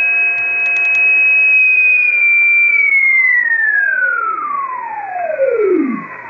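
Reuter RDR54 receiver in upper-sideband mode putting out steady whistles from carriers on the 20-metre amateur band over band hiss, with a few short clicks about a second in. From about two seconds in, as the receiver is tuned up, the whistles slide down in pitch one after another, the loudest falling to a low hum near the end.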